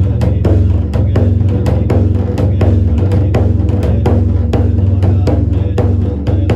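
Hōraku daiko, the devotional temple drum of a Buddhist service, struck in a fast even rhythm of about four beats a second over a steady low drone.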